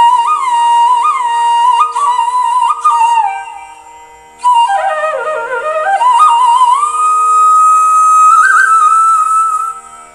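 Flute music in Carnatic style: a single melody with bending, ornamented notes over a steady drone. It fades briefly about four seconds in, then comes back with a long held note.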